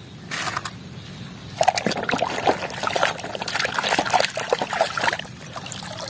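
Muddy water splashing and trickling in a tub as a plastic toy car is dipped and lifted out, water pouring off it. The splashing gets busier from about a second and a half in.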